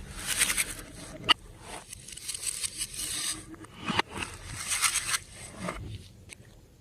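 Glossy slime being worked by hand, squishing and crackling in repeated bursts with a few sharp pops.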